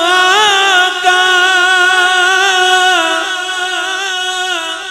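A male naat reciter sings one long held note without words, with wavering ornaments on the vowel, amplified through a microphone.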